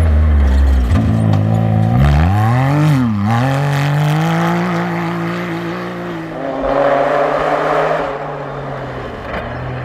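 Rally-raid vehicle's engine accelerating hard: its pitch climbs about two seconds in, dips briefly at a gear change near three seconds, holds high, then eases off about six seconds in. A burst of rushing noise follows around seven seconds.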